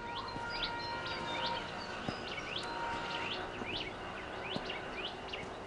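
Small birds chirping: short, quick high calls repeated about two to three times a second over faint outdoor background noise.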